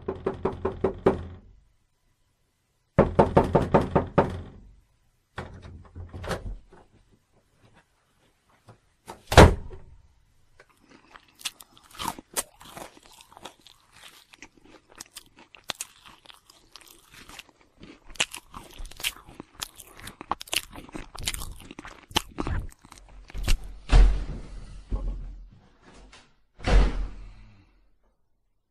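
Horror sound effects: two short bursts of rapid rattling knocks, a single sharp hit, then a long stretch of irregular cracks and clicks broken by two heavy thuds near the end.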